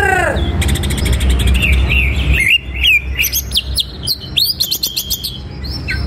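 Male greater green leafbird singing a fast, varied song of rapid trills, clicking runs and sharp rising whistles, over a low background rumble that drops away about halfway through.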